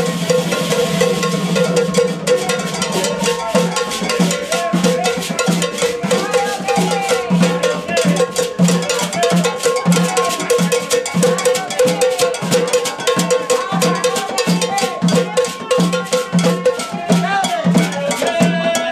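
Brazilian carnival band playing live: hand drums and other percussion beating a fast, even rhythm, with voices over it.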